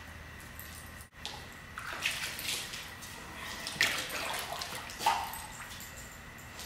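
Pool water splashing and sloshing in irregular bursts as a dog tries to get a soccer ball out of the water, with sharper splashes about 2, 4 and 5 seconds in.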